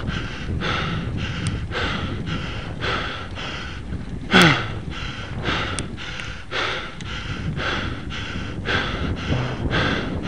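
A cyclist panting hard and rhythmically, about two breaths a second, as he labours up a steep climb close to his limit. About four and a half seconds in comes one loud gasping breath with a falling groan. A low rumble runs underneath.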